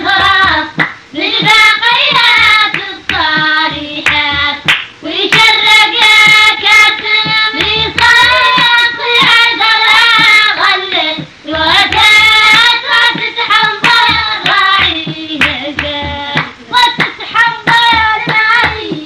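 A high voice singing long, bending notes over frequent sharp hand claps, as a song soundtrack.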